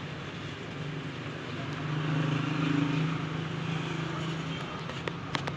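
A motor vehicle's engine running steadily as it passes, its hum growing louder about two seconds in and then fading away.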